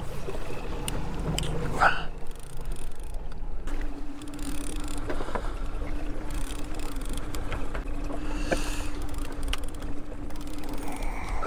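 Fishing boat trolling under power: a steady low motor rumble with wind and water noise, and a steady hum that comes in about four seconds in. A few light clicks sound over it.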